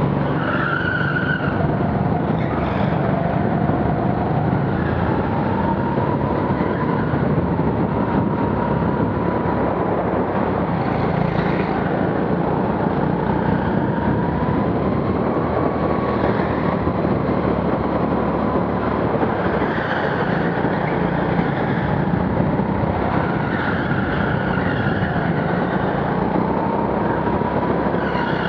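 Rental go-kart driven at racing speed, heard from the driver's helmet: a steady running noise with a motor note that rises and falls with speed through the corners. Short tyre squeals come as the karts slide through the bends.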